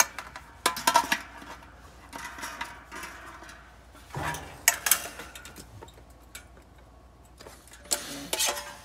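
Clattering and clinking of a dryer heating element's sheet-metal housing and wire coils as it is handled and turned over, in three short bouts: about a second in, around four to five seconds in, and near the end.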